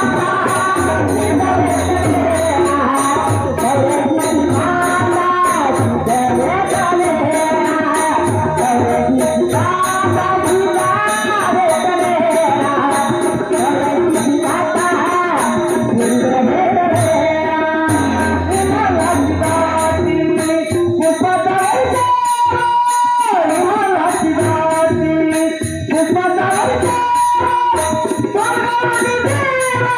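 A woman singing a Marathi abhang, a devotional bhajan, with a steady rhythmic percussion accompaniment; she holds one long note about two thirds of the way through.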